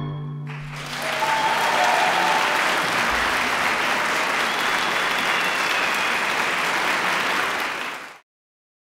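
The string band's last sustained note dies away, then a concert audience applauds steadily. The applause cuts off suddenly near the end.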